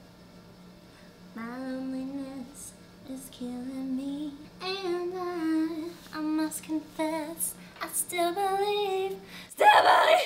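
A woman singing softly to herself without words anyone can make out, a single unaccompanied voice holding drawn-out, wavering notes, then breaking off near the end with a loud short burst of voice.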